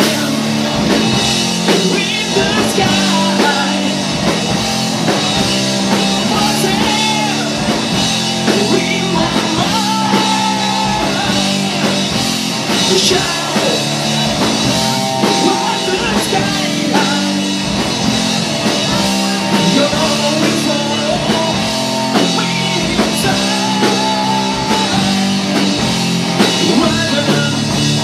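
Rock band playing live: a male singer sings over electric guitars and a drum kit.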